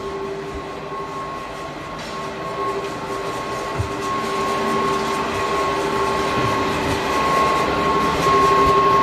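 Factory machinery running: a steady mechanical din with a high whine and a lower hum held at constant pitch, growing steadily louder.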